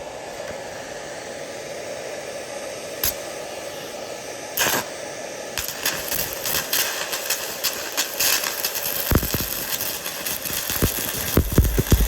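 Small 110-volt handheld stick welder humming, then the arc struck with a short sputter about four and a half seconds in. From about six seconds on, the electrode arc crackles and spits unevenly, with heavier pops near the end.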